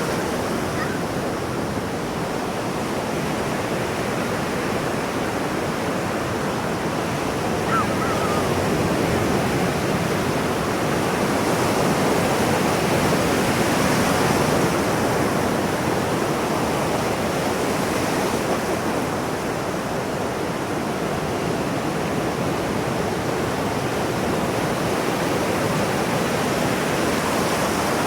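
Ocean surf washing onto a shore, a continuous rush of breaking waves that swells a little louder around the middle and then eases.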